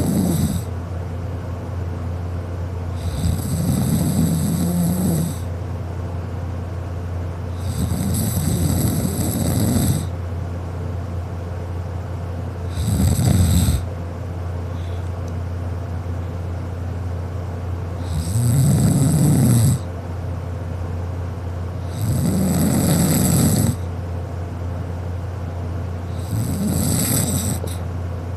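A sleeping person snoring, kinda loud, in a regular rhythm: one snore about every four to five seconds, each lasting one to two seconds. A steady low hum runs underneath.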